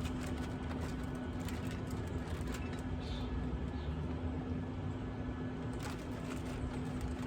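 Steady, even hum of a running pellet smoker's fan and motor, with a few faint ticks.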